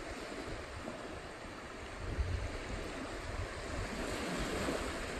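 Small surf washing up a sandy beach, a steady wash of water. Wind on the microphone adds a low rumble in gusts, strongest about two seconds in.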